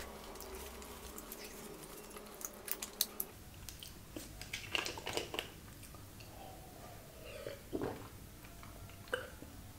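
Quiet, close mouth sounds of chewing with scattered small clicks, then a plastic sports-drink bottle being handled, uncapped and drunk from, with swallows near the end.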